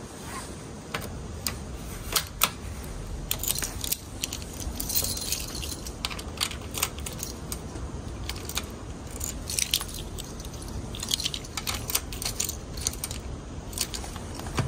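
A bunch of keys jangling and clicking against the battery lock of an electric bicycle while the key is turned to release the battery, in many small irregular clicks.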